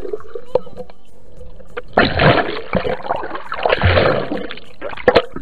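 Muffled splashing and rushing bubbles heard underwater as a snorkeler kicks, in two surges about two and three and a half seconds in.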